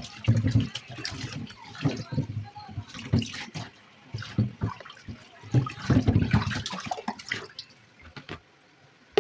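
Water from a kitchen tap running and splashing into a stainless steel sink as dishes are rinsed by hand, with irregular splashes and knocks as the dishes are handled. It turns quieter near the end.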